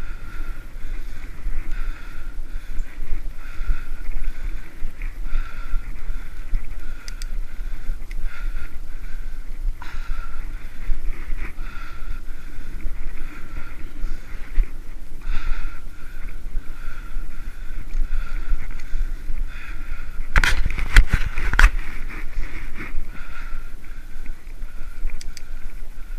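Wind and tyre noise of a hybrid bicycle rolling along a paved trail, picked up by a camera on the moving bike, with a steady low rumble throughout. About twenty seconds in comes a short cluster of sharp rattling knocks.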